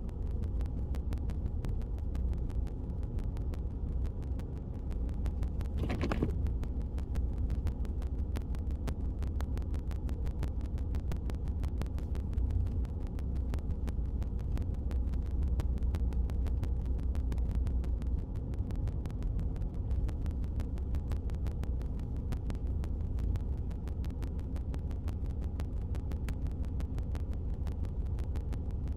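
Steady low rumble of a car driving, with a rapid, even ticking running through it. About six seconds in comes one short tone that falls in pitch.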